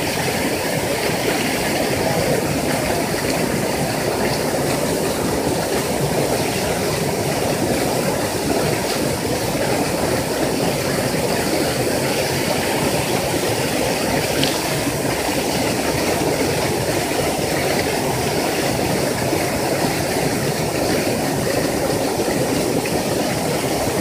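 Small waterfall rushing steadily close to the microphone: an even, unbroken wash of falling water.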